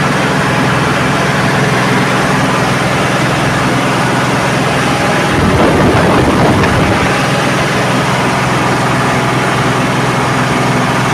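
Claas Dominator 108 combine harvester's diesel engine running steadily, with a brief louder surge about halfway through.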